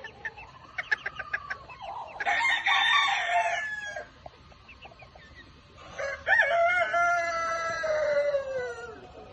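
Chickens calling: a run of short clucks, then a rooster crowing twice, a crow about two seconds in and a longer one about six seconds in that falls in pitch at the end.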